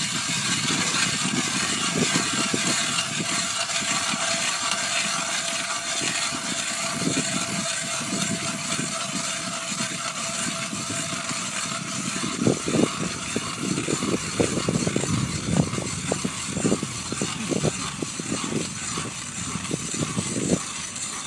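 Hand-cranked ice auger's blades cutting through about 30 cm of lake ice: a steady grinding rasp that turns into a run of separate crunching strokes about halfway through.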